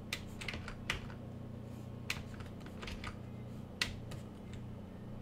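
Computer keyboard keys clicking: about a dozen sharp taps at an uneven pace, over a low steady hum.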